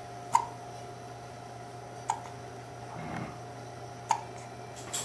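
Repeated hiccups: short, sharp hiccups about two seconds apart, three of them, with another starting at the very end.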